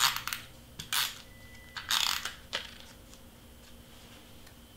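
Tombow adhesive tape runner drawn across the back of a cardstock piece in three short strokes, each a dry, crackling zip, all within the first three seconds.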